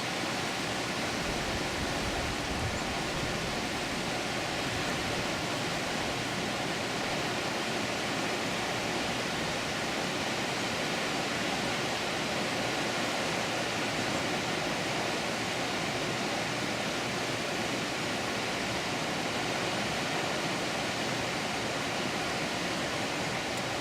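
Water rushing at a dam: a steady, even rush that does not change.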